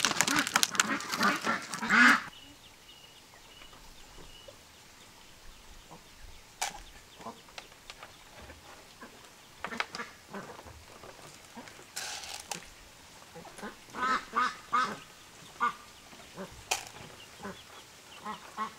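A rustle and patter of seeds poured from a packet into a plastic bowl for about the first two seconds. Then a quieter stretch with ducks quacking now and then, the calls coming thickest about two-thirds of the way through.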